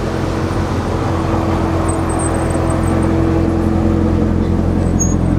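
C7 Corvette's V8 running at low revs with a deep, steady burble as the car creeps past at walking pace, growing slightly louder toward the end.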